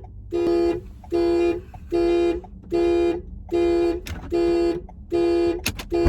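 Car alarm sounding through the car's horn: a steady run of short, evenly spaced honks, each about half a second long, a little more than one a second. The alarm has been set off by accident.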